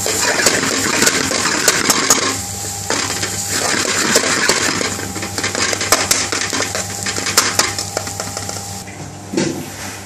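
Spatula scraping and clinking against a steel pan while onions and peppers fry with spices, with many sharp metallic clicks over a low sizzle.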